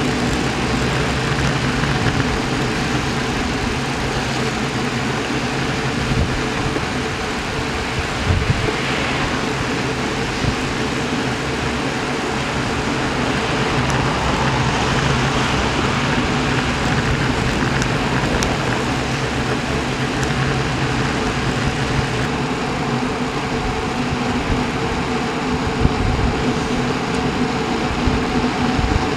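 Steady wind rush and tyre-on-asphalt road noise picked up by a bicycle-mounted camera moving at about 30 km/h in a bunch of road bikes, with a couple of brief knocks about 8 and 26 seconds in.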